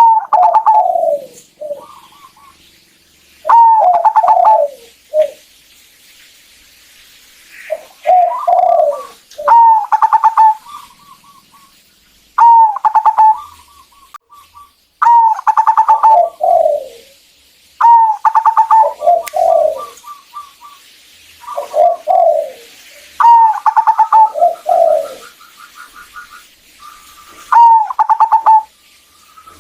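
Zebra dove cooing over and over. Each call is a quick stuttering run of notes that falls in pitch into lower coos, repeated about every two to three seconds, with fast trains of short ticks trailing after several calls.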